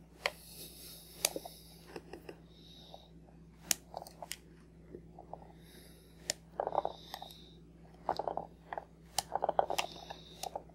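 Plastic toy scissors snipping Play-Doh hair strands: scattered sharp clicks and short soft crackling snips, faint, with quiet gaps between.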